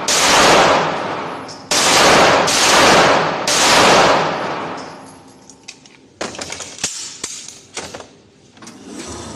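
Four shots from a Zastava CZ99 semi-automatic pistol, irregularly spaced over about four seconds, each with a long echo from an indoor range; after the last shot the slide locks back on an empty magazine. A few seconds later come light clicks and clatter as the pistol is handled and set down on the bench.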